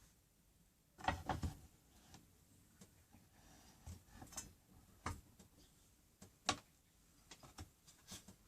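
Scattered light knocks and clicks of things being handled on a workbench: a short cluster about a second in, then single sharper knocks around five and six and a half seconds in.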